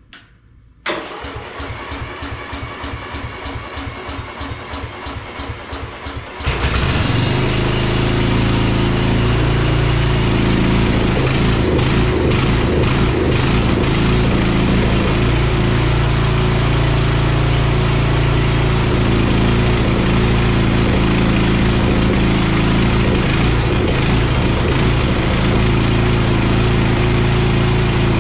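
Cub Cadet 42 riding lawn tractor's engine cranking on the key starter for about five seconds on full choke, then catching and running steadily. This is a cold start at 17 degrees after the engine has sat for four months.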